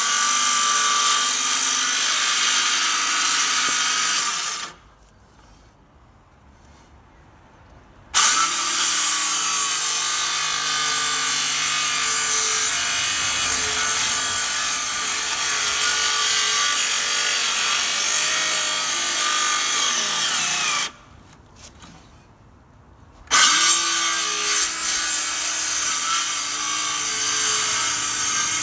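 Ryobi circular saw ripping along the edge of a wooden gate, running steadily with a high whine. It stops twice and starts up again abruptly each time, a few seconds later.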